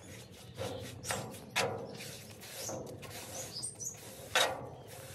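Paintbrush swishing across a sign board in a few separate strokes, the loudest about four seconds in. A bird chirps a few times a little past the middle.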